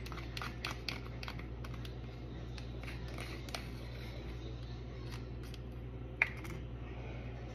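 Light plastic clicks and crinkles from a small plastic portion cup being peeled open and handled, with a sharper tap about six seconds in, over a steady low hum.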